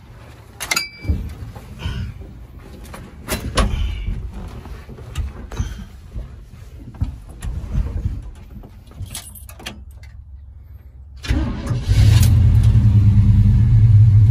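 Clicks and knocks from getting into the cab of a 1970 Chevrolet C10 pickup, then about eleven seconds in its engine starts after a brief crank and settles into a steady, loud idle.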